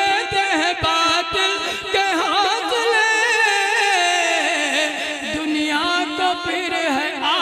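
A man singing a line of Urdu naat in a classical style, drawing out long ornamented notes that waver and slowly fall, with no clear words.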